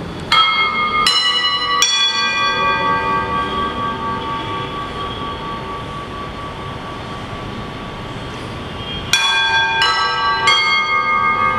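Bell struck three times in quick succession and left to ring on, then three more strokes about nine seconds in. These are the consecration bells of the Mass.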